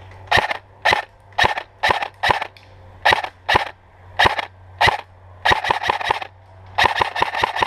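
Airsoft gun firing close by: single shots at roughly two a second, then two quick strings of rapid shots over the last two and a half seconds.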